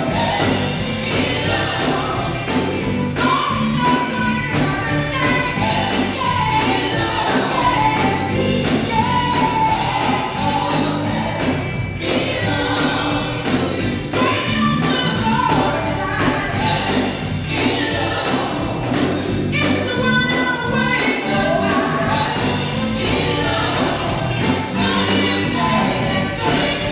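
Live gospel music: a women's vocal group singing together into microphones over a band with drums keeping a steady beat.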